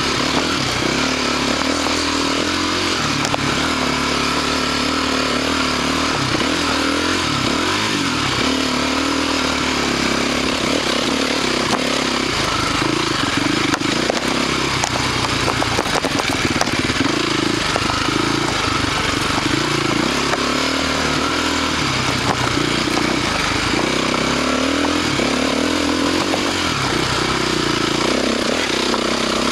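Husqvarna TC450 dirt bike's single-cylinder four-stroke engine running under load while riding a trail, its pitch rising and falling as the throttle opens and closes, heard close up from the bike.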